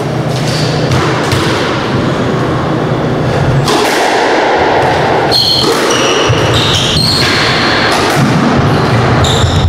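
A squash rally: the ball thuds off rackets and the court walls, and rubber-soled court shoes squeak sharply on the wooden floor several times in the second half, over a steady background hiss.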